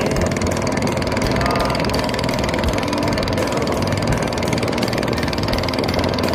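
Small wooden fishing boat's engine running steadily under way, a fast even putter.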